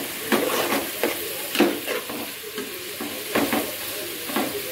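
Sliced onions sizzling in hot oil in a metal pot, stirred with a metal spoon that scrapes the pot in several irregular strokes. The onions are being fried until they brown.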